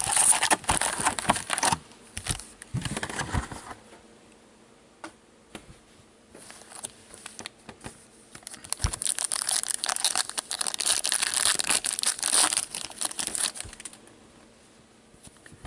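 Hockey card pack wrappers crinkling and tearing as the packs are opened by hand. There is a short bout at the start and a longer, louder stretch of crinkling from about six to fourteen seconds in, with scattered clicks between.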